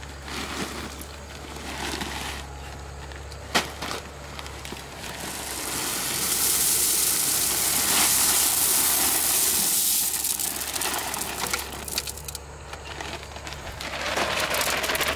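Small gravel poured from a plastic bag onto landscape fabric lining a hole, the stones hissing out in a steady stream that is loudest in the middle and comes again near the end. There is one sharp click about three and a half seconds in.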